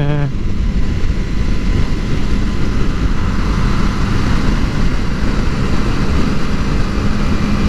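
Kawasaki Ninja 250 motorcycle cruising at expressway speed: a steady engine hum under loud wind rush.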